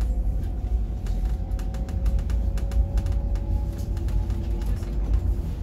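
Stockholm metro train running, heard from inside the carriage: a steady low rumble with a faint motor hum slowly rising in pitch and light clicks from the wheels on the rails.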